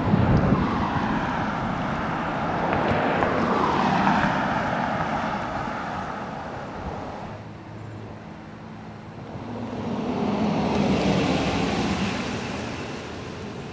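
Vehicles passing on a street, the road noise swelling and fading twice: once about four seconds in, and again around eleven seconds as a pickup truck drives by close.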